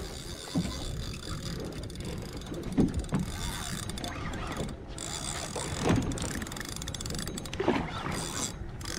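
Large spinning fishing reel being cranked under load against a big fish, its gears clicking and whirring in runs, with a few short thumps.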